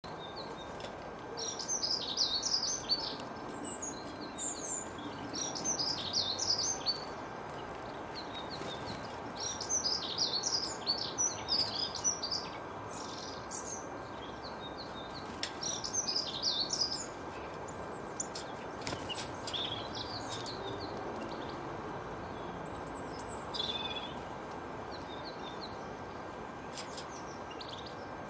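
Songbird singing in short bursts of quick, high twittering notes, several phrases a few seconds apart, over steady outdoor background noise.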